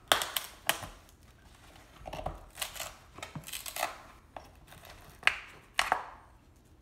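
Nailed and glued pine crate lid being pried open with a small pry bar: a string of sharp wood cracks and creaks in irregular bursts as the boards give, the loudest at the very start and about five seconds in.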